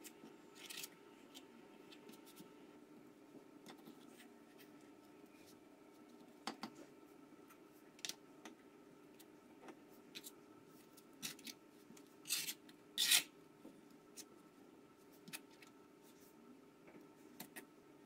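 Spatula spreading and scraping buttercream over a baked honey-cake layer: soft, scattered scraping strokes, with a few louder short scrapes a little after halfway.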